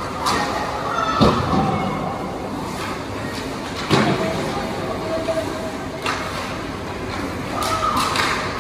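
Ice hockey play on a rink: a steady scraping din from skates on the ice, broken by sharp clacks and knocks of sticks, puck and boards. The loudest knocks come about a second in and again near four seconds in.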